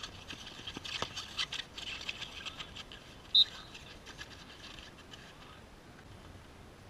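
Field hockey play on an artificial-turf pitch: scattered clicks and scrapes of sticks and running feet, thinning out after about five seconds, with one short high pip a little past the midpoint.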